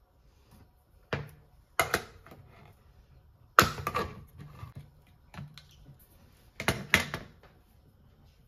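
A handful of sharp knocks and clatters of a can of black beans being handled and opened on a kitchen counter, the loudest about three and a half seconds in and two in quick succession near the end.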